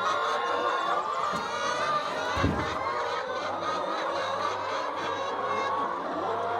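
A flock of laying hens clucking and calling over one another, with a single low thump about two and a half seconds in.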